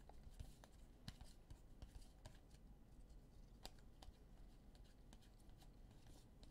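Near silence with faint, scattered light clicks and scratchy rustles of trading cards being handled and flipped through.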